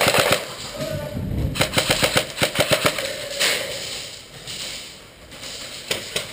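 Airsoft guns firing in rapid bursts: a short burst at the start and a longer run of quick shots from about a second and a half in, with more shots near the end.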